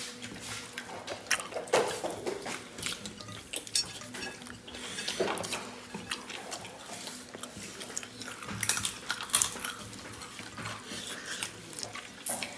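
Spoons and serving ladles clinking against ceramic plates and bowls, with soft wet sounds of rice and curry being mixed and eaten by hand. Scattered clinks, with louder ones about two seconds in and again around nine seconds.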